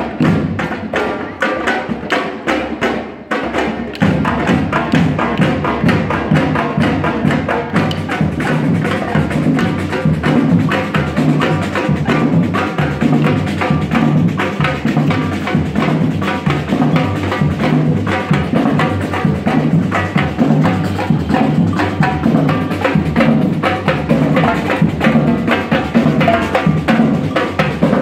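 Wooden maculelê sticks clacking in rhythm with light percussion. About four seconds in, a batucada drum section comes in loud, with surdo bass drums and snare drums playing a fast, steady groove.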